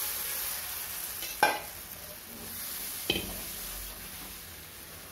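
Thin besan (gram-flour) batter sizzling in hot mustard oil as it is poured into a kadhai and stirred with a silicone spatula; the hiss fades steadily as the batter cools the oil. Two sharp knocks sound, about a second and a half in and again about three seconds in.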